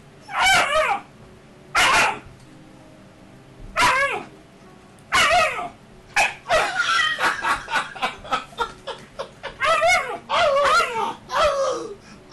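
Alaskan Malamute puppy yipping and barking while play-fighting, in short high calls that bend in pitch. The calls are spaced out at first, then come in a quick run of many short barks about halfway through.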